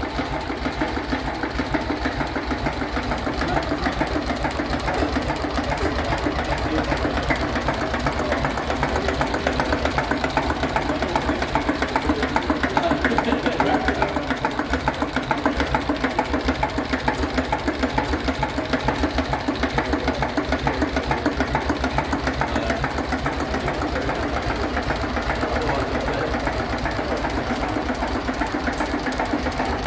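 Lister JP3 three-cylinder stationary diesel engine running steadily with an even, rapid beat.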